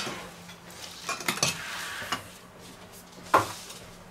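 Metal baking tray with a wire cooling rack sliding and knocking on a stone countertop: a few light clinks, then a sharper knock with a short ring about three seconds in. A faint steady hum sits underneath.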